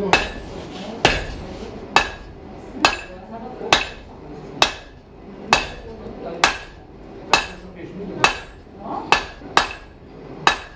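Blacksmith's hammer striking hot round iron bar on an anvil, one blow about every second, each with a short ring. Near the end the blows come quicker.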